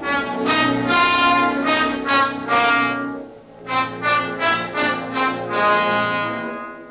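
Brass fanfare from a film score: two phrases of short, bright, loud notes over sustained lower notes, with a brief pause between the phrases.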